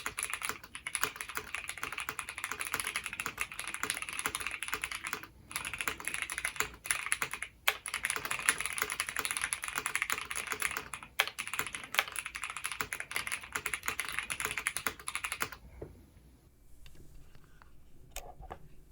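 Fast, continuous typing on a Keychron Q6 Max full-size mechanical keyboard with factory-lubed Gateron Jupiter Red linear switches, PBT OSA keycaps and a polycarbonate plate, heard through a phone microphone. The typing stops near the end.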